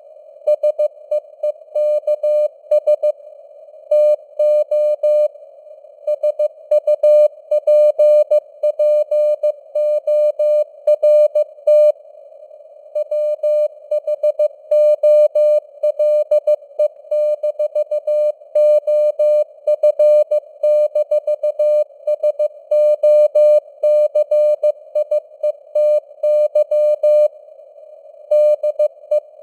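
Morse code (CW) sent at 15 words per minute: a single steady beep tone keyed on and off in dots and dashes, with short gaps between words, over simulated radio band hiss.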